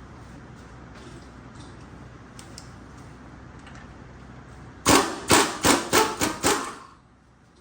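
Six quick hammer blows, about three a second, struck about five seconds in over a steady background noise that cuts off just after the last blow.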